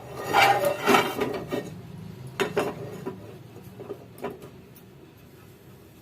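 Kitchen utensils and cookware clattering: a burst of metal clinks and knocks with brief ringing in the first second and a half, then a few lighter single knocks.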